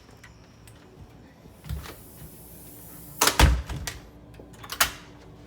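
A few scattered knocks and clicks, the loudest a cluster of heavy knocks about three and a half seconds in, with a sharp click near the end.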